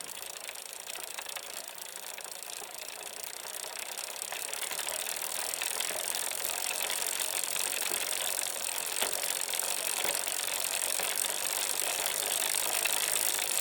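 Bicycle in motion: a steady mechanical whir with fine ticking, growing louder from about four seconds in.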